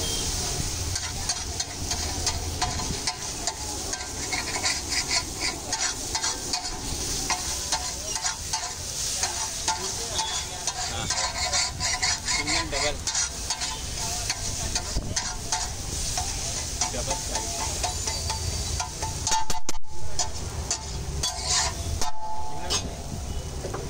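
A metal spatula scrapes and chops scrambled eggs across a large flat iron tawa in quick, repeated strokes, over the steady sizzle of egg frying in oil. The sound swells louder for a moment about twenty seconds in.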